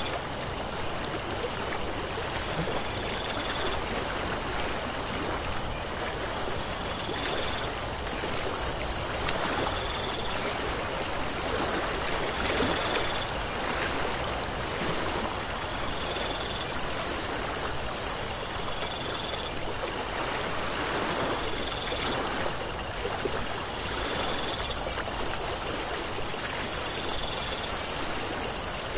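Steady rush of flowing water, like a stream, with evenly pulsing high chirps over it and a very high hiss that swells and fades every few seconds.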